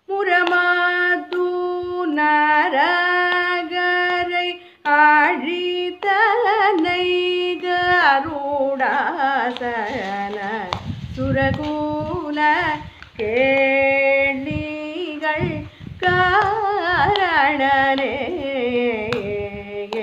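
A woman singing a Tamil Ashtapadi solo in Carnatic style, in long phrases of held notes with gliding ornaments and short breaks for breath.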